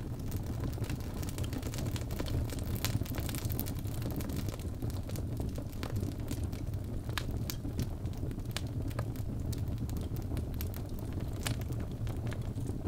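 Wood fire burning, with frequent sharp crackles and pops from the logs over a steady low rumble.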